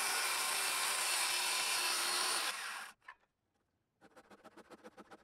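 Circular saw cutting through a western red cedar 6x6 beam, running steadily and winding down about two and a half seconds in. After a short silence, a handsaw starts quick, short strokes in the wood, about six a second.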